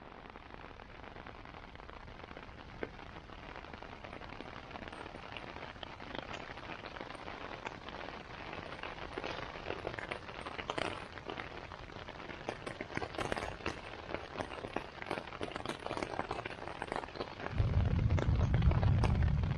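Raindrops pattering on the tent fabric of a Jack Wolfskin Exolite one-person tent, heard from inside, growing denser and louder as the edge of a storm arrives. Near the end a loud, deep rumble sets in.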